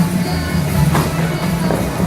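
Music with a strong bass line, its low notes changing every fraction of a second.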